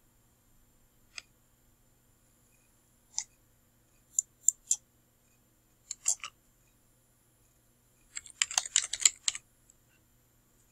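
Typing on a computer keyboard: a few scattered keystrokes, then a quick run of keystrokes about eight seconds in.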